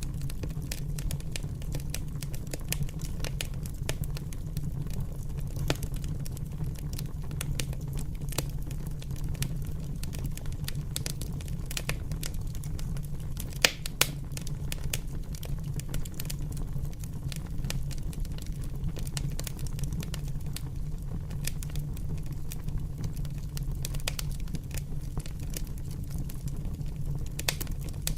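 A fire crackling: a steady run of sharp snaps and pops over a low, even rumble, with two louder pops close together about midway.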